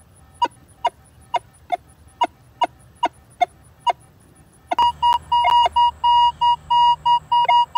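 Minelab Equinox 800 metal detector target tones over a large silver coin stood on edge: first a choppy string of short, clipped beeps, about two and a half a second, the broken signal the detector gave on big silver on edge before the firmware update. From about five seconds in, longer, solid tones at the same pitch: the clean signal after the update, with the ID in the upper 30s.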